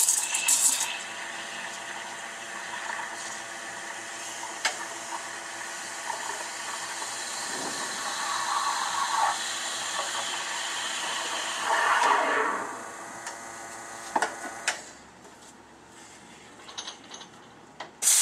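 Rancilio Classe 9 espresso machine's steam wand steaming milk in a pitcher: a steady hiss of steam through the milk, swelling briefly, that stops about fifteen seconds in. A few faint knocks follow.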